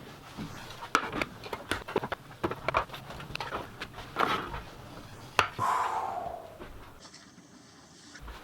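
Food cans, jars and packets being taken out of a locker and set down: a string of small knocks and clatters with plastic rustling, and one longer rustle a little past the middle.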